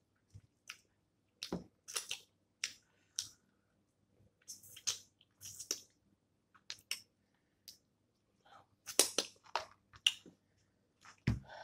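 Snow crab legs being cracked and eaten close to the microphone: irregular sharp cracks, snaps and clicks of shell, with chewing, and a dull knock near the end.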